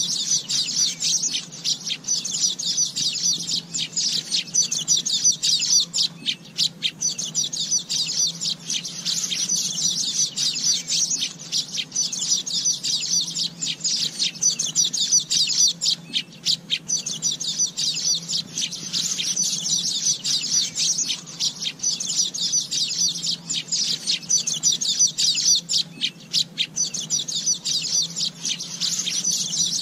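Asian golden weavers chattering, a dense, unbroken stream of high, rapid calls with no pauses.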